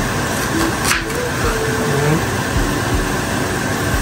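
A chef's knife cutting an onion on a wooden cutting board, knocking once against the board about a second in, over a steady whirring background noise.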